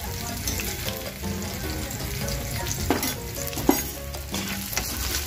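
Onion slices frying in mustard oil in a kadai, sizzling steadily, with two sharp clicks about three seconds in.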